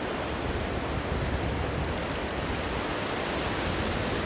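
Surf at the water's edge: a steady rush of breaking waves and foaming wash running over sand.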